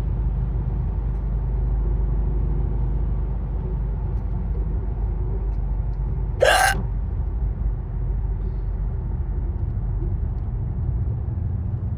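One sharp hiccup about six and a half seconds in, over a steady low rumble of road noise from a moving car.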